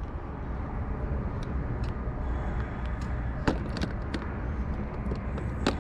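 Steady low outdoor background rumble, with four short sharp clicks, the loudest about three and a half seconds in and just before the end.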